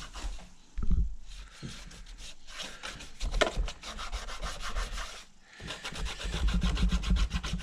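Rapid back-and-forth wiping and rubbing on the plastic top cover of a Technics SL-1200 MK2 turntable, cleaning dust off it with citrus-based cleaner, with brief pauses about a second in and about five seconds in.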